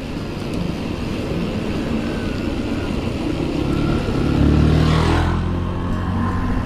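Wind rushing over the microphone of a mountain bike coasting downhill, with a motor vehicle's engine passing close by, loudest about five seconds in.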